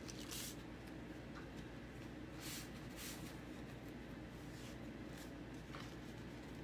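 Faint, scattered rustles of a plastic adhesive stencil transfer sheet being handled and pressed onto a chalkboard, over a steady low hum.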